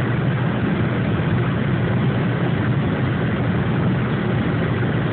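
Steady engine and road noise of a car driving along, heard from inside its cabin.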